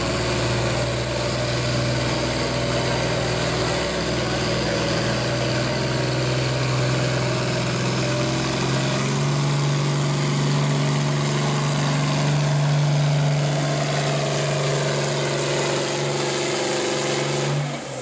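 International Harvester farm tractor's diesel engine running hard and steady under full load while pulling a weight-transfer sled, with a high whine over it that slowly climbs. Near the end the engine drops off suddenly as the pull ends.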